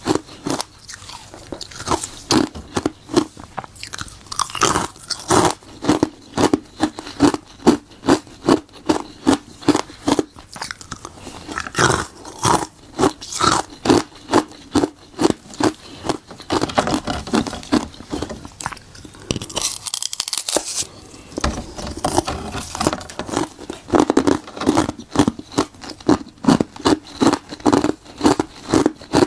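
Close-up crunching of ice cubes made from frozen buckwheat tea being bitten and chewed: loud, crackling crunches in a steady chewing rhythm, about two chews a second.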